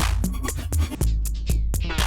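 Electronic music from the Endorphines Evil Pet granular sampler: a drum-machine groove of fast, even hi-hat ticks over deep bass notes, with short pitched synth notes.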